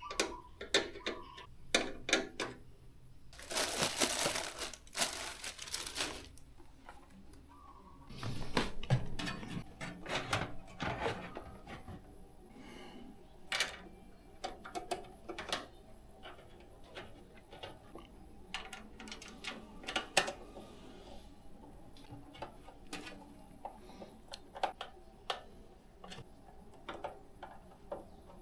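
Small clicks and knocks of PC cables and connectors being handled and plugged into motherboard headers inside a computer case, with two longer rustling stretches a few seconds in.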